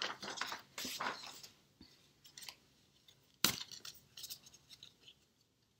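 Sheets of paper and a box of flashcards being handled: papers shuffling for the first second or so, then scattered small taps and clicks, with one sharp click about three and a half seconds in.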